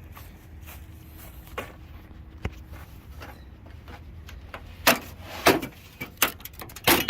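Faint scattered taps, then four loud, sharp knocks in the second half, spaced roughly two-thirds of a second apart.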